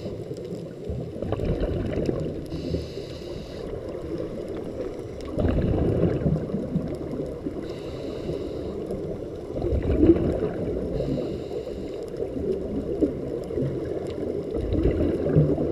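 Scuba breathing through a regulator, heard underwater: a short hiss of inhaling alternates with a low rumble of exhaled bubbles, about every four seconds.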